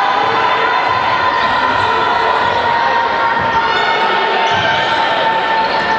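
Basketball bouncing on an indoor court during play, over a steady din of gym noise.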